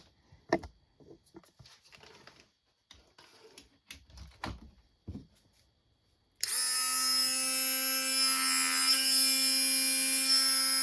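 Warrior corded rotary tool switched on about two-thirds of the way in, running unloaded with a steady high-pitched whine. Before that, scattered clicks and knocks as the tool is handled.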